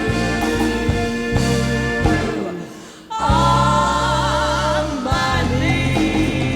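A female vocal trio and a band hold the closing notes of a song. The music dips briefly about three seconds in, then comes back on a loud held chord, the voices singing with vibrato.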